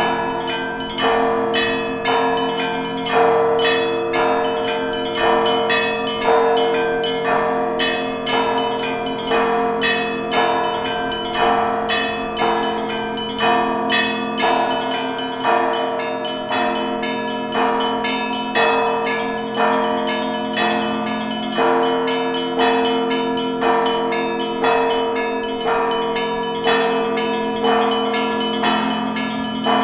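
Russian church bells ringing in a steady rhythm, several bells struck about once a second. The deep hum of the larger bells carries on underneath the strokes.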